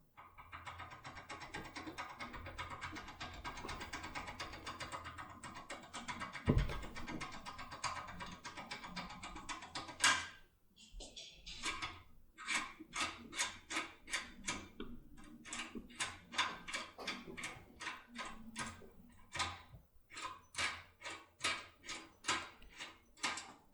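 Foil impression pick being worked inside a French POLLUX INOUI lock cylinder: about ten seconds of continuous scraping with a single knock partway, then a run of short metallic clicks, about two a second.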